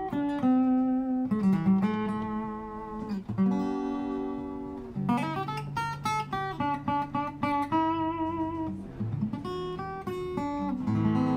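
Fender Presonic acoustic-electric guitar being played: quick runs of picked single notes alternate with chords left to ring.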